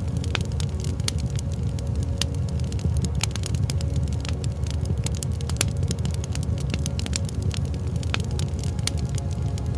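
Wood fire crackling: many sharp, irregular pops and snaps, several a second, over a steady low rumble of the burning fire.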